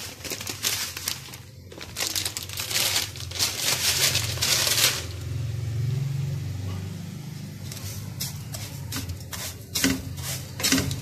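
Plastic vermicelli packet crinkling and dry vermicelli rustling as it is poured into a frying pan of oil, for about the first five seconds. Then a low hum, with scattered scrapes and ticks near the end as the vermicelli is moved around the pan.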